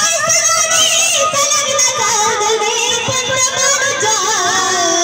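A woman singing a Waghya-Murali devotional folk song over instrumental accompaniment, her voice winding through wavering, ornamented runs.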